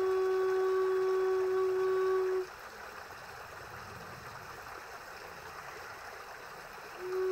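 Wooden Native American-style flute holding one long low note that stops about two and a half seconds in. A steady background hiss fills the pause, and a new note at the same pitch begins near the end.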